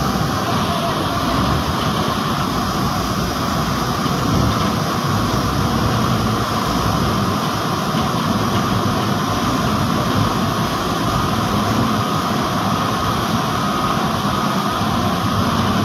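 Bulldozer diesel engine running steadily under load as the machine wades almost submerged through a river, mixed with the continuous rush of water pouring over a log weir.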